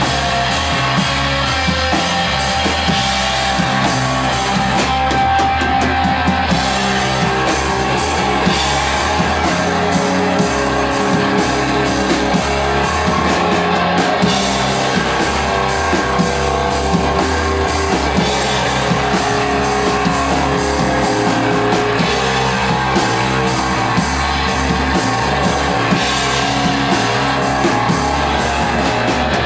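Doom metal band playing live and loud: heavily fuzzed electric guitar through a Matamp GT1 valve amp, with a drum kit beating out a steady rhythm.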